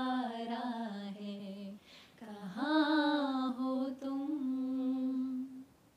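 A woman singing a slow melody unaccompanied. A phrase steps down in pitch, there is a short breath about two seconds in, then she slides up into a long held note that fades out just before the end.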